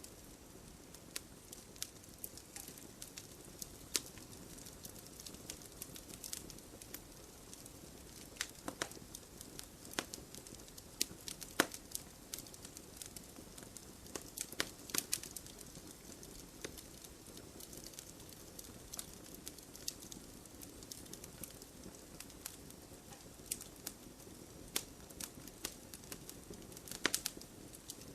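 Wood fire burning, with irregular sharp crackles and pops over a soft steady rush of flame.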